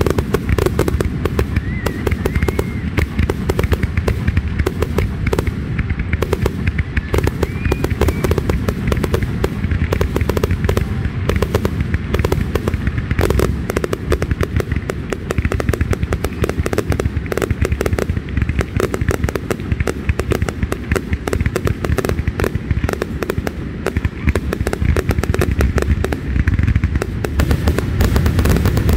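Fireworks going off in a dense, continuous barrage of bangs and crackles, many reports each second.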